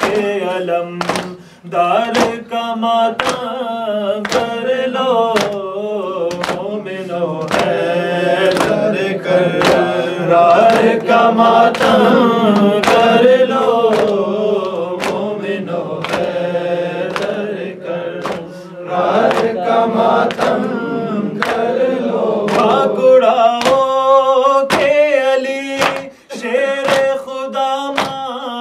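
Men's voices chanting a Muharram mourning lament (noha), accompanied by a steady rhythm of chest-beating slaps (matam) about once a second.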